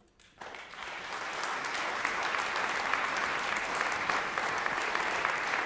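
Audience applause that breaks out suddenly about half a second in, swells over the next second and then holds as steady clapping from many hands.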